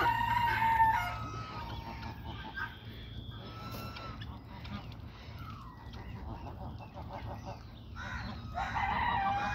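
Indian peafowl calling: a loud, held call right at the start, scattered shorter calls in the middle, and another long call with a slight fall in pitch near the end.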